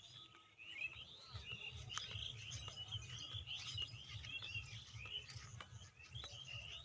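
Several small birds chirping and twittering, many short overlapping calls and whistles, over a low rumble.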